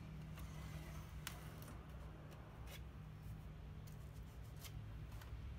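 Faint clicks and light rubbing from hands handling a belt sander's abrasive belt and metal housing, with the machine switched off, over a low steady background hum.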